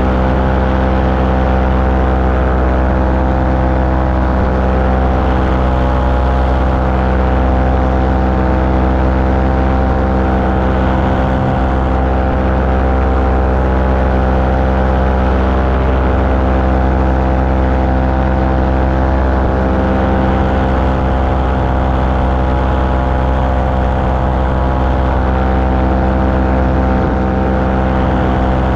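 Small aircraft engine running steadily at constant power in flight, with a hiss of rushing air.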